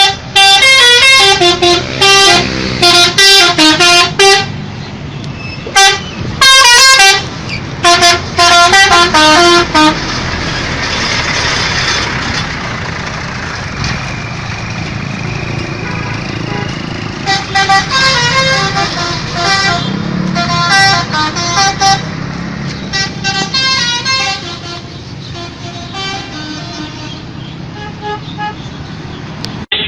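Indonesian 'telolet' multi-tone musical bus horn playing fast stepping note sequences, loud, in repeated bursts through the first ten seconds and again from about seventeen to twenty-six seconds. A steady vehicle rumble runs beneath and between the horn bursts.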